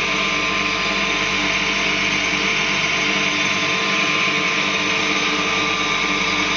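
1960s Duet combination saw bench and planer running steadily, driven by belt from its half-horsepower Gryphon electric motor: an even hum with a whine and hiss over it. The bearings run smoothly.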